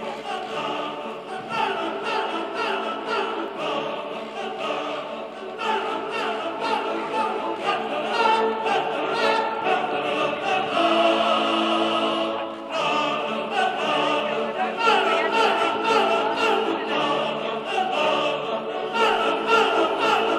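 Classical choral music with orchestra: voices singing in an operatic style over held orchestral chords.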